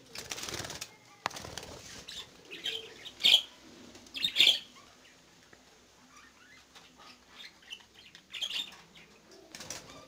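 Budgerigars flapping their wings in a burst at the start, then chirping in short, high calls a few times, the loudest a little over three and four seconds in.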